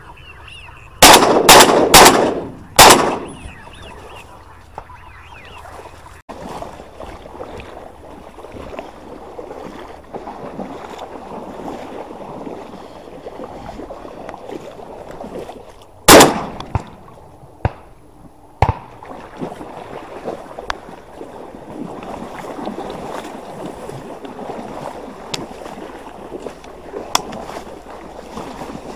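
Shotgun shots at ducks: four loud reports in about two seconds near the start, then one more shot about halfway through. Faint waterfowl calls just before the first shots, and between and after the shots steady rustling and splashing of movement through reeds and water.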